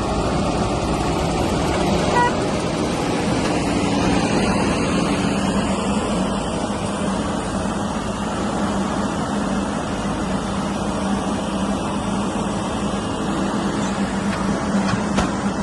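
Diesel engine of a backhoe loader or tractor running steadily under working load, with a constant low hum.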